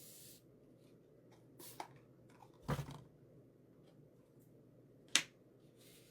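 A few light clicks and knocks of craft supplies being handled on a tabletop: a duller knock with a low thump a little under three seconds in, and a sharp click about five seconds in.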